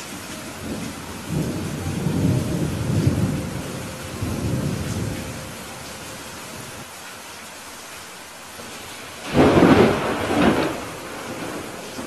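Thunderstorm: steady rain with low rolling thunder from about a second in to about five seconds, then a sudden sharp thunderclap near the end, the loudest sound, rumbling off over about a second and a half.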